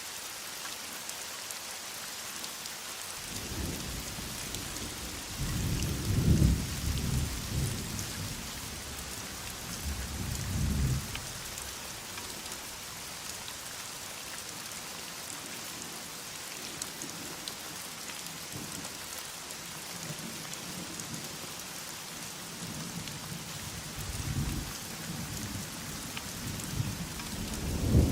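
Heavy rain falling steadily, with rolls of thunder. Low rumbles build from about three seconds in, are loudest around six seconds and again near eleven, and return near the end.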